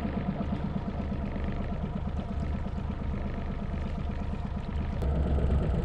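Small boat's motor running steadily at low trolling speed: a low, even hum with a fast regular pulse. A single short click comes about five seconds in.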